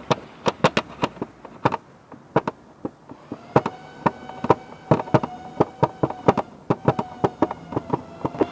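Power drill at work on nearby building work: sharp irregular knocks, several a second, and from about three seconds in the steady whine of the drill's motor.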